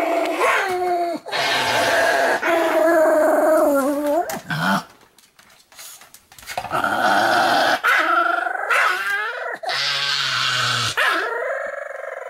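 A Pomeranian growling and howling in long, wavering vocal calls. The calls break off for about two seconds midway, then resume and settle into a steadier held note near the end.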